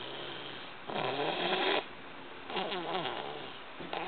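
A sleeping toddler snoring very loudly, in a few long snores that dip and rise in pitch, the loudest starting about a second in.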